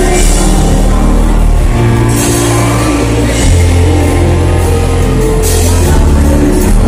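Live band playing loudly through a concert PA, dominated by heavy sustained bass, with drums.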